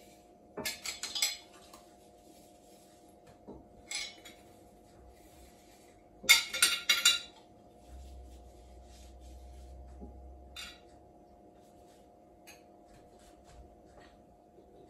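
Metal jar lids clinking against a dish and against each other as they are dipped in vinegar and wiped, in short bursts of rapid clinks, the loudest run about six seconds in, over a faint steady hum.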